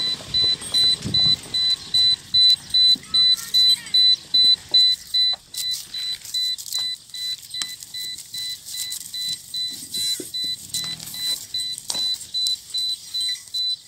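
A car's electronic warning beeper sounding over and over, a high-pitched beep about three times a second, a little softer after about five seconds.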